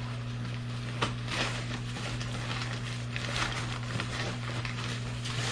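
Brown kraft-paper shipping bag rustling and crinkling in several short bursts as it is handled and pulled open, over a steady low hum.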